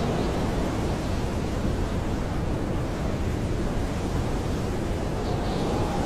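Blizzard wind blowing steadily, a dense low rumbling rush of noise, with a faint whistling tone coming through near the end.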